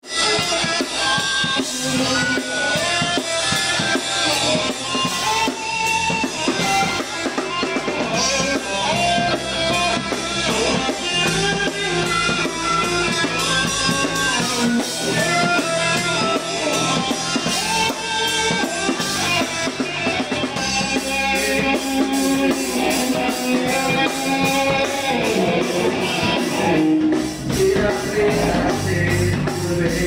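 Rock band playing electric guitar, bass guitar and a drum kit. The drumming turns faster and denser about two-thirds of the way in.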